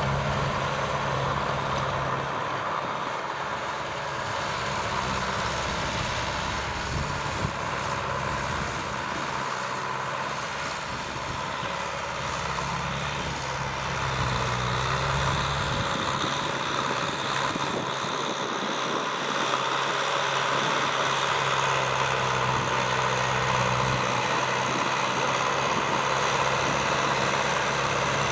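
Kubota M6040SU tractor's diesel engine running steadily under load while plowing, with a constant engine note and mechanical noise that shift a little in its low tones now and then.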